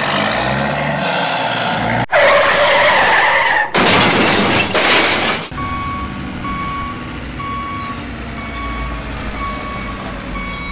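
Vehicle sound effects in short spliced pieces: engine and skid-like noise that changes abruptly every second or two. Then, from about five and a half seconds in, a truck's reversing alarm beeps about once a second over a low engine rumble.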